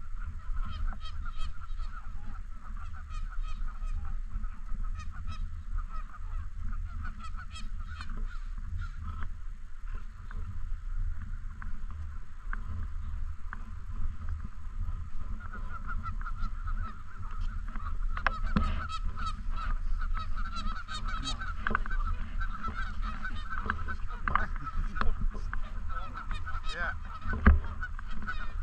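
A flock of Canada geese honking continuously, many overlapping calls that grow denser and louder about halfway through. A single sharp knock sounds near the end.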